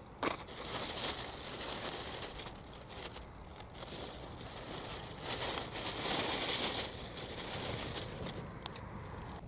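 Crinkling and rustling in uneven swells, with a sharp click just after the start.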